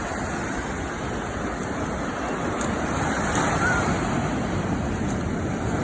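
Ocean surf washing onto a beach, a steady rushing noise, with wind on the microphone.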